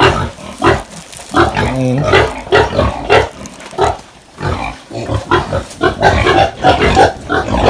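Pigs in a pen calling, a dense run of short loud calls one after another with a brief lull about four seconds in.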